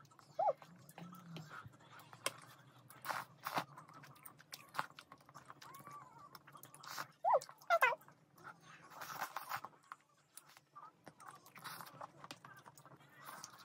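Mouth sounds of someone eating tteokbokki with melted cheese: wet chewing and slurping with scattered sticky clicks. There are short squeaky, wavering slurps a little past the middle.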